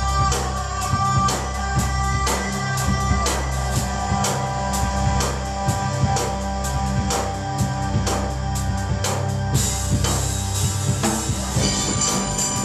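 Band playing live, led by a drum kit keeping a steady beat over sustained low notes; a brighter, hissing wash joins near the end.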